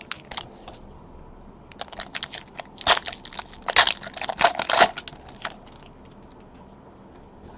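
Plastic trading-card packaging crinkling and crackling as it is handled and crumpled: a run of sharp crackles starting about two seconds in, loudest in the middle, then dying away.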